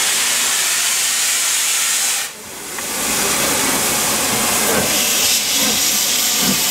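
LNER K4 steam locomotive The Great Marquess venting steam from the top of its boiler: a loud, steady hiss that drops away briefly about two seconds in, then builds back up.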